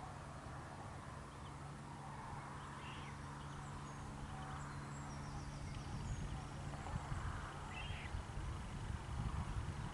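Quiet pondside countryside ambience: a few faint, scattered bird chirps over a steady low hum, with low wind rumble on the microphone picking up in the second half.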